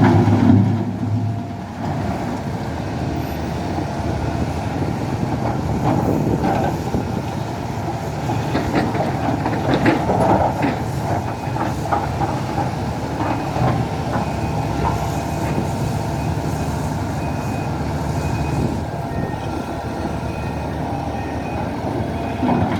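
SANY hydraulic excavator's diesel engine running steadily under load, with repeated metallic clanks and knocks from the working machine.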